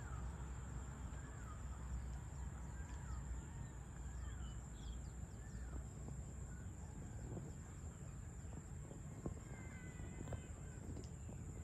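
Evening outdoor ambience: birds giving short, repeated chirping calls over a steady high-pitched insect drone, with a low rumble underneath.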